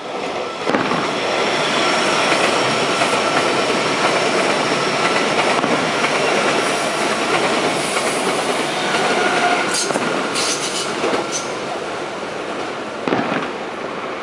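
Meitetsu electric train passing close by, its wheels squealing steadily on the rails with a clatter over the rail joints. A brief louder knock comes near the end.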